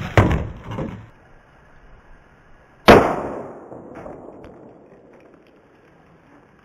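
Three sharp bangs: two quick ones close together at the start, then a much louder one about three seconds in that rings out and echoes away over a second or so.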